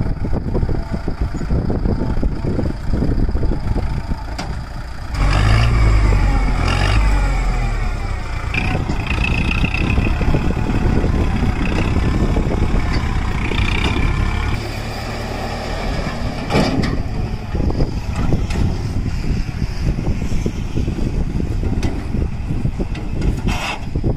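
Kubota MU4501 tractor's four-cylinder diesel engine running under load while its hydraulics tip the loaded trolley. About five seconds in it gets louder and the engine note rises and falls for a few seconds, then it runs on steadily.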